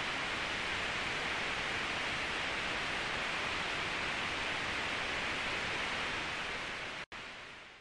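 Steady, even hiss of noise, cutting out for an instant near the end and then fading out.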